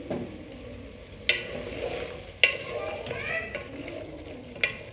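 Wooden spoon stirring pressure-cooked beef and its broth in a metal pressure cooker pot, knocking sharply against the pot three times.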